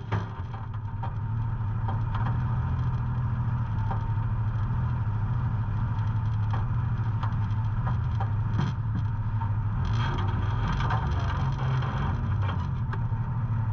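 Side-by-side UTV engine running steadily, with scattered clicks and knocks over it.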